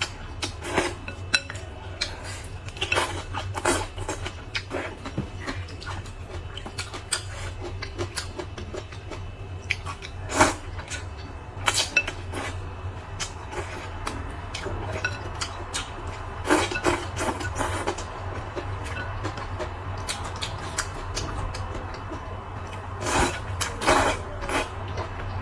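Eating sounds from a bowl of spicy rice noodles: utensils clink irregularly against the bowl over a low, steady hum.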